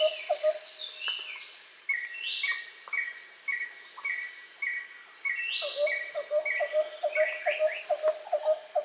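Several birds chirping and singing together, one repeating a short low note about three times a second, over a steady high insect-like trill.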